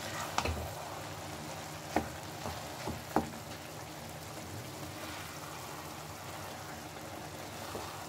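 Wooden spatula stirring wilted saag greens in a kadhai, with a few sharp knocks against the pan in the first three seconds or so. Under it runs a steady sizzle of the greens cooking in their own released water.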